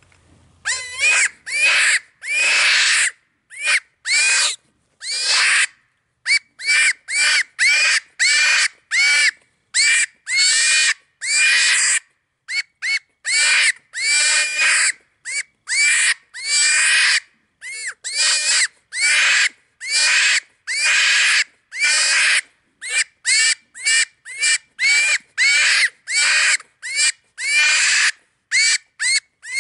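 Hand-blown predator mouth call sounding cottontail-in-distress squeals: a long run of short, high, wavering squalls, one after another with brief breaks, some in quick pairs.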